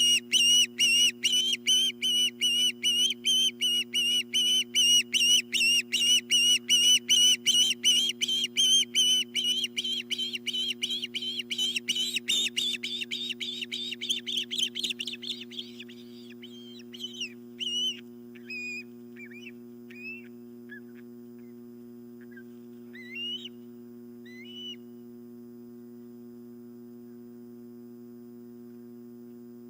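Osprey calling: a rapid series of high, whistled cheeps, about three or four a second, that grows fainter and faster and stops about halfway through. A few scattered short chirps follow, over a steady low hum.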